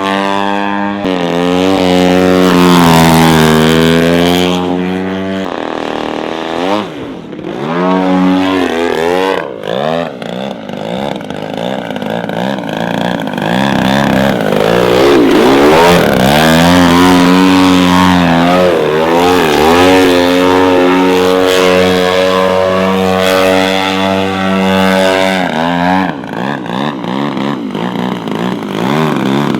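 Petrol engine of a large radio-controlled model aircraft running under changing throttle, its pitch swinging up and down again and again as the model manoeuvres and passes. It drops to a lower, quieter note twice, about six seconds in and near the end.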